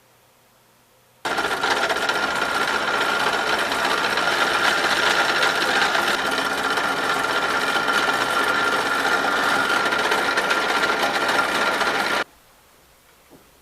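A power tool running steadily with a constant whine, starting abruptly about a second in and cutting off suddenly near the end.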